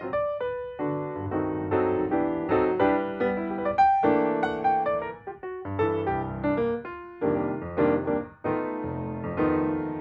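Background piano music: a continuous flow of struck notes and chords that ring and fade.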